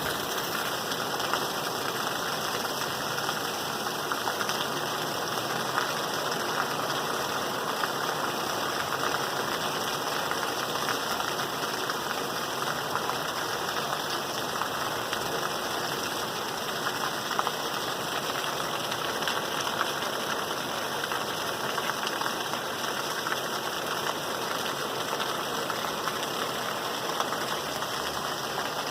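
Steady rain falling, an even hiss of many small drops that holds without change.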